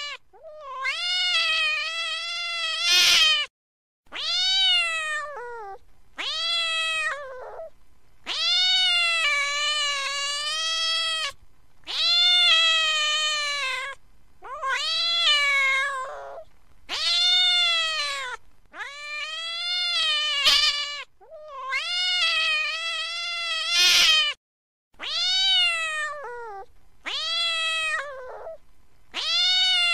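An angry cat yowling over and over: about a dozen long, drawn-out meows of one and a half to three seconds each, with short pauses between. Each call holds its pitch and then slides down at the end.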